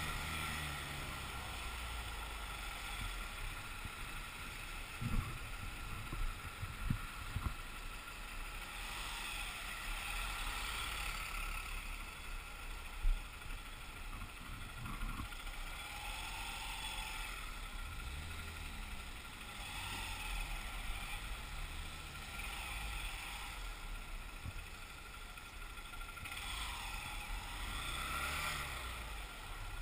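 Motorcycle engine running in city traffic, its revs rising and falling several times, with wind rushing over the microphone. A few sharp knocks stand out, the loudest about thirteen seconds in.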